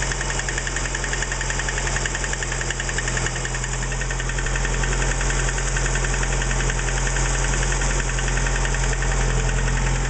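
VAZ-11194 1.4-litre 16-valve four-cylinder engine running steadily with a fast, even knock: the classic knock of a worn piston and connecting-rod group.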